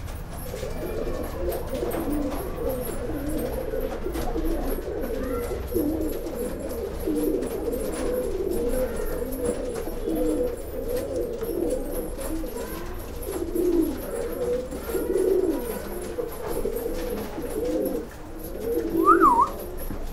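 Rakdher pigeons in a loft cooing steadily, many low coos overlapping. A brief higher-pitched squeak comes near the end.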